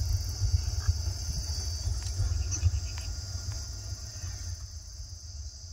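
Steady high-pitched insect chirring over a low, fluctuating rumble that eases toward the end.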